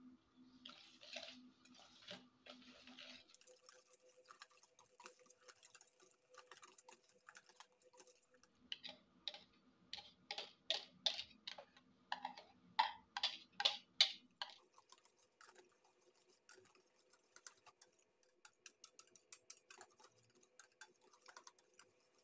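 Wire balloon whisk clicking against the side of a stainless steel bowl while mixing batter, in fast rhythmic runs that are loudest in the middle stretch and lighter near the end.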